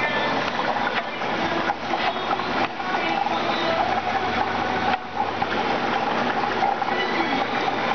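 Steady machine hum and water noise of aquarium equipment, such as pumps and filters, running without a break.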